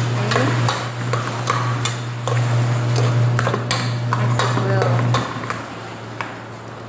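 Metal spoon knocking and scraping against an aluminium pot while fried rice is stirred, in irregular clinks about once or twice a second. A steady low hum runs underneath and drops away about five seconds in.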